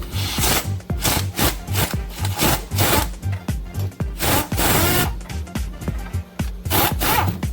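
Repeated scraping strokes, about two a second, with a pause of roughly two seconds about two-thirds of the way in, over background music with a steady beat.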